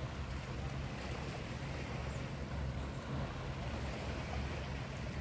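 Wind rumbling on the microphone over a steady wash of small sea waves on a rocky shore.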